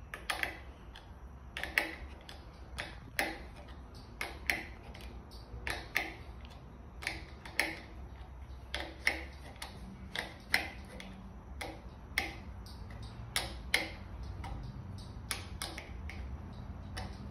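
Small 8mm wrench working the housing bolt of a hydraulic bicycle brake lever tight in short strokes: sharp metal clicks, often in pairs, about one to two a second.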